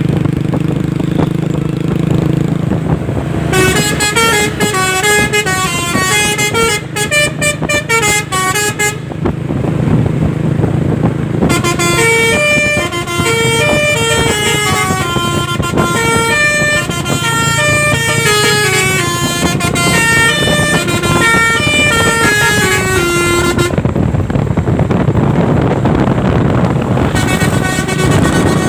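Basuri 'telolet' musical truck horns playing a tune as quick runs of separate notes, in several phrases with short breaks between them. A steady low engine hum runs underneath.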